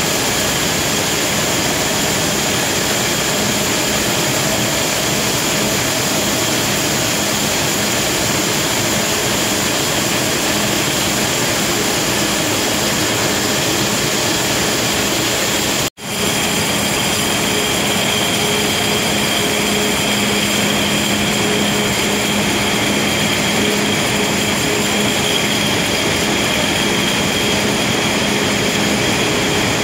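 Steady, loud running noise of aluminium can production-line machinery, conveyors and their drive motors, with a constant hum and a high whine. It breaks off for an instant about halfway through and resumes with the hum a little stronger.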